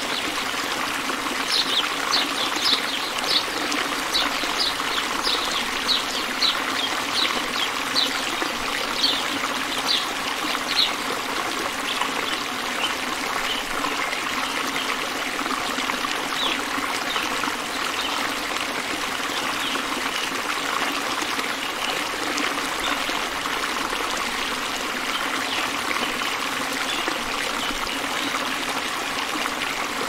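Stream running steadily over small rocky cascades, with a run of short high chirps about one or two a second, clear in the first ten seconds and fainter afterwards.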